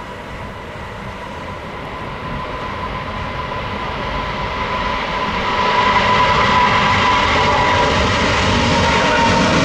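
Twin turbofan engines of an Airbus A330-900neo at takeoff thrust during the takeoff roll, with a steady whine over the noise. The sound grows louder as the jet comes nearer and levels off at its loudest about six seconds in.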